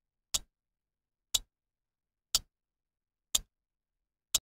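Clock-tick sound effect of a quiz countdown timer: five sharp ticks, one a second, marking off the seconds left to answer.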